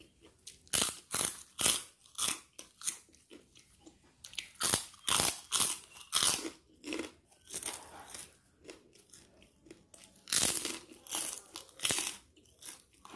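Close-miked chewing with loud, sharp crunches, in three runs separated by quieter pauses, as lumps of fat are bitten and chewed.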